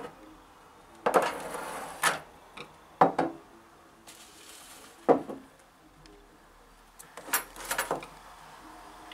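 A series of sudden knocks and scrapes: one about every second for the first few seconds, another a little after five seconds, then a quick cluster of several near the end.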